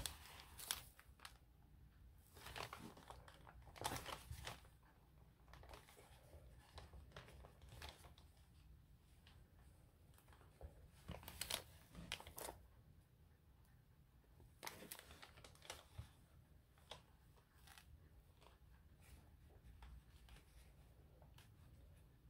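Faint, scattered rustling and crinkling of paper pages and quilted fabric being handled while a journal's binding is hand-sewn with needle and thread.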